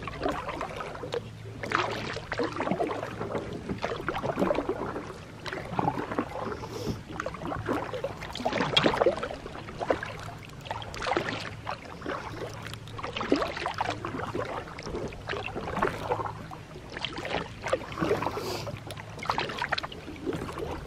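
Kayak paddling on calm lake water: the paddle blades dip and pull through the water about every second and a half, with splashes and drips between strokes.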